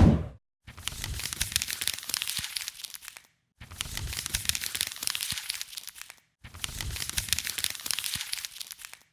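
Crackly crinkling and tearing noise in three bouts of about two and a half seconds each, each starting and stopping abruptly.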